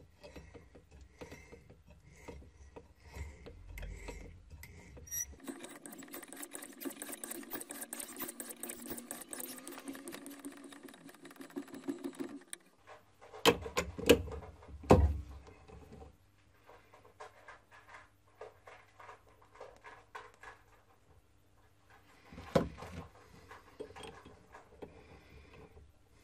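Hand work at a metal lathe chuck on a brass pen part. First comes light, evenly spaced clicking as a hand tap is turned into the brass. Then a steady rasping noise runs for about seven seconds, followed by a few loud metallic clanks from the chuck key at the chuck, with faint rattling as the brass tube is reset in the jaws.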